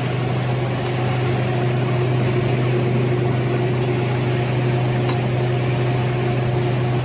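Corn-snack extruding machine running with a steady low hum, a few fainter steady tones above it.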